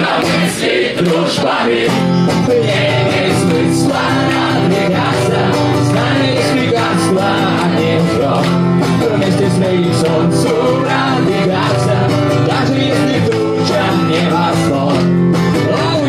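Live rock song: a man singing into a microphone while strumming an acoustic guitar, over a steady bass line and beat.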